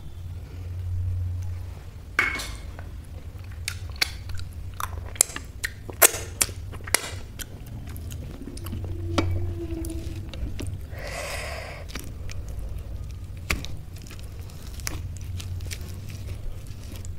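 Fingers mixing rice and dal on a metal plate: wet squishing with many short, sharp clicks and taps, most of them in the first half, over a steady low hum.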